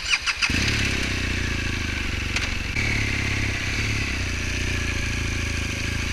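BMW R1200GS flat-twin (boxer) motorcycle engine starting, catching about half a second in after a few clicks, then running steadily.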